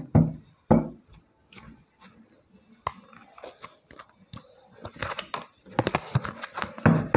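A deck of oracle cards being handled, with scattered small clicks, then a quick run of crisp card clicks about five seconds in.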